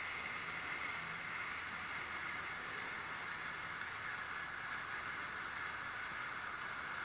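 Pyrotechnic firework torch burning with a steady hiss.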